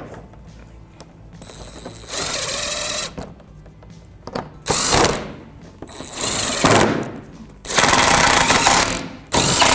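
A cordless electric gun with a 10mm socket drives bolts into a plastic engine splash shield, running in five short bursts of about a second or less each.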